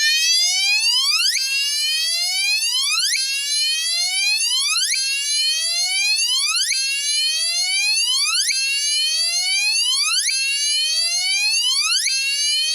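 Gentex Commander 3 fire alarm horn sounding its whoop tone: a loud rising sweep repeated about every 1.8 seconds without a break. Described as really loud.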